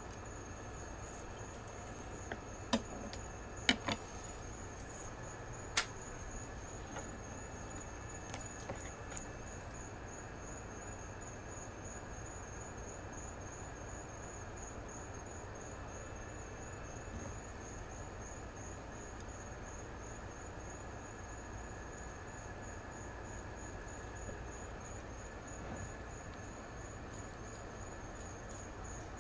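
A cricket trilling steadily in an evenly pulsing high tone, over a low hum. A few sharp clicks of a knife against a plastic cutting board come about three to six seconds in, while fish fillets are being cut.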